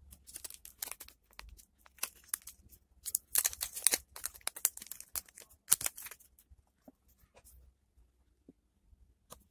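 Clear plastic sleeve and packaging being crinkled and tugged as a photocard is pulled free of a taped cardboard mailer: an irregular run of crackly rustles and tearing, loudest in the middle and thinning out after about six seconds.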